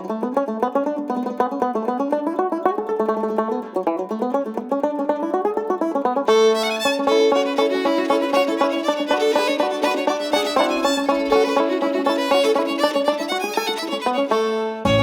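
Instrumental music: a fiddle tune with banjo, playing quick runs of notes. About six seconds in the arrangement fills out, and a bass comes in near the end.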